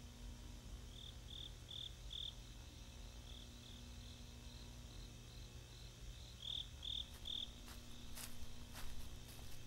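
Crickets chirping in short pulses, three or four at a time, over a low steady hum. From about seven seconds in, footsteps crunch through grass and undergrowth.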